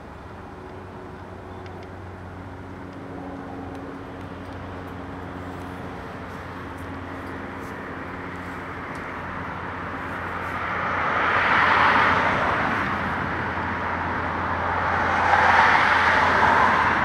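Road traffic: a low steady engine hum, then two passing vehicles whose noise swells and fades, loudest about twelve and again about fifteen seconds in.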